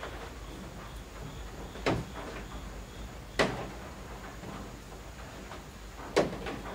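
Steady rain falling on roof eaves, with three heavy drips landing with sharp knocks at irregular intervals, the loudest near the end.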